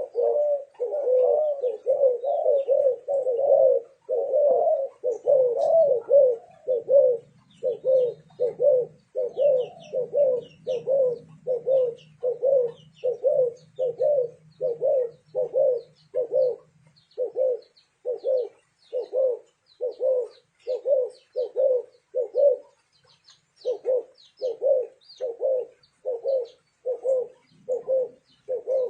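Spotted doves cooing: a long, even run of short low coos, about one and a half a second, with a brief pause about two thirds of the way through. Faint high chirps of small birds sound behind them.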